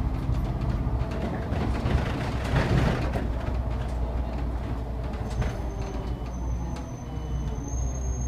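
City bus in motion, heard from inside at the front: the engine's steady low drone with road noise and scattered small rattles and clicks from the cabin fittings, swelling briefly about three seconds in.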